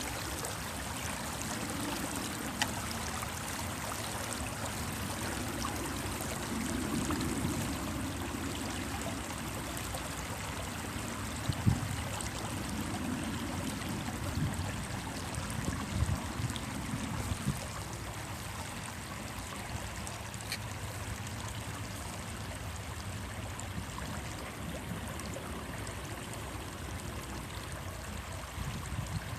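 Stream water running and trickling steadily over rocks, with a few brief louder low splashes or bumps around the middle.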